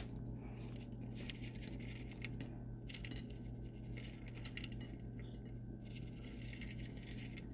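Light, rapid clinks and scrapes of a utensil against a plate as food is served, over a steady low hum.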